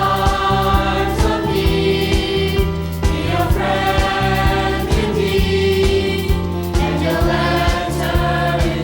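Upbeat Christian song with a group of voices singing over a steady beat.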